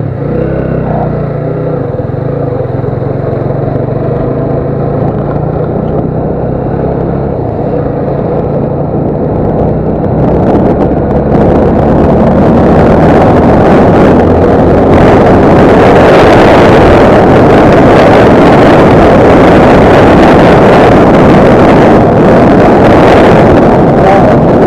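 Motorcycle engine running at low speed. From about ten seconds in, wind rushing over the microphone builds up as the bike speeds along, and the loud wind noise drowns out the engine.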